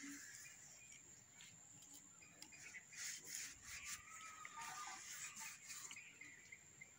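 Faint, scratchy rubbing of a hand working paste into a kithul palm's flower stalk, in irregular strokes that are strongest through the middle.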